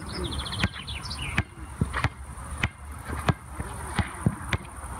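A basketball bouncing on an outdoor hard court in a steady dribble, sharp knocks about one and a half a second. A bird gives a quick run of high chirps near the start.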